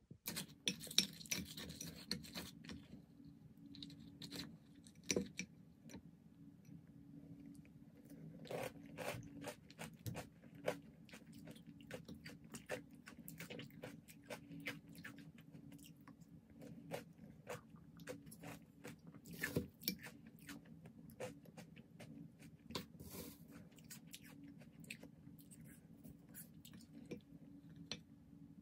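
Crunchy chewing of granola and a wooden spoon scraping and clicking against a glass bowl of yogurt, in many irregular short crunches and clicks over a steady low hum.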